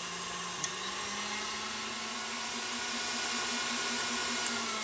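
KitchenAid Artisan stand mixer whipping cream, its motor running with a steady hum that rises slightly in pitch as the speed is turned up gradually. A small click comes about half a second in.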